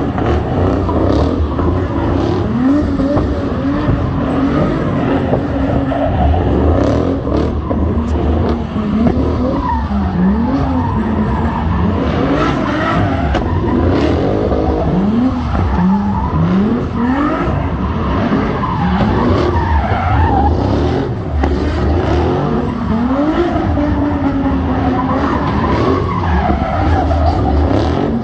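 Car engine revving up and down over and over while the tyres squeal and skid, as in a burnout or drifting.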